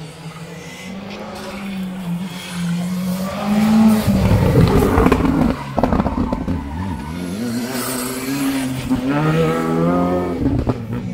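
A rally car's engine revving hard on a special stage: the pitch climbs and drops back several times as the driver shifts and lifts, loudest about four to five seconds in.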